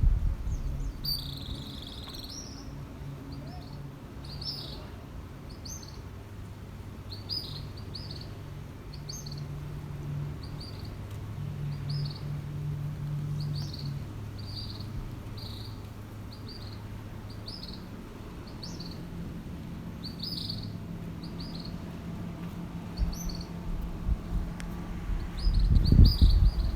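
Small birds chirping, short high chirps repeated throughout, over a low steady hum. A loud low rumble comes near the end.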